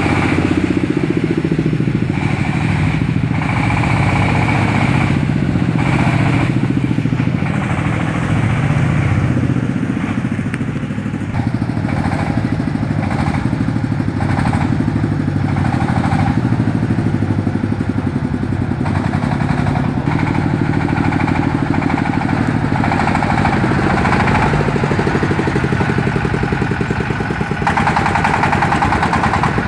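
Engine of a homemade 4x4 plantation hauler (ledok) on a PS100 truck chassis, running steadily under load as it drives over rough, overgrown ground.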